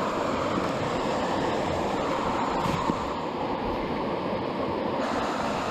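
Steady rushing of the Chattooga River's flowing water, an even noise with no break.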